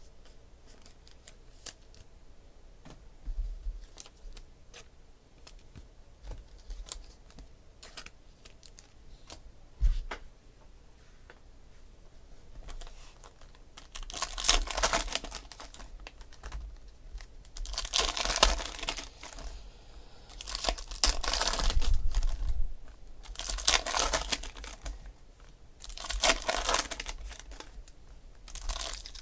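Foil trading-card pack wrappers being torn open and crinkled, in about five loud bursts through the second half. Before that, light scattered clicks and taps of cards being handled.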